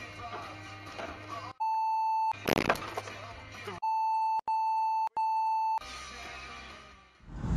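Music playing, cut off by a steady electronic beep, with all other sound dropped out under it. A short loud burst of noise follows, then three more beeps in quick succession, after which the music returns and fades away.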